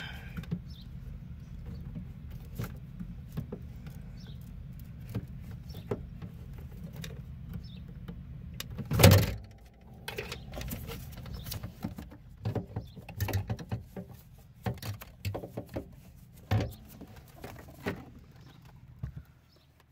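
Hands working plastic connectors and the OnStar (VCIM) module: a steady low hum through the first half, one loud knock about nine seconds in, then scattered clicks and knocks.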